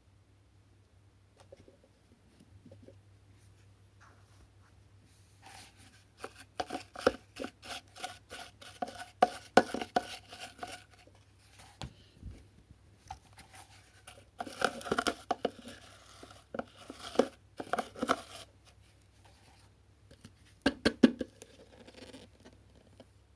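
Hands working on the plastic parts of a GeeMo E4 cordless stick vacuum during cleaning: irregular bursts of clicking, rattling and rustling, with a couple of short pauses.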